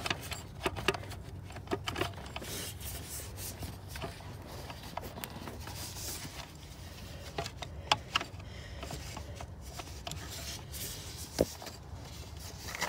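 Rubbing and scraping as a serpentine belt is worked out from around its pulleys by hand, with scattered light clicks and knocks, the sharpest about eight and eleven seconds in.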